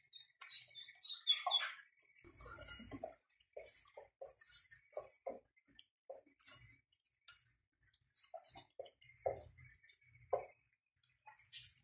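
Vegetables and long beans (sitaw) being dropped by hand and tipped from a plastic colander into an aluminium pot, giving scattered light knocks, taps and rustles at irregular intervals.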